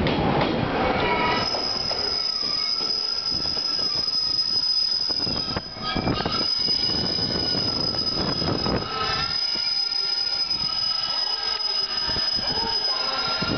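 JR Kyushu 813 series electric train braking as it comes into the platform. A high steady brake squeal and wavering squeal tones ride over rumbling wheel-on-rail noise.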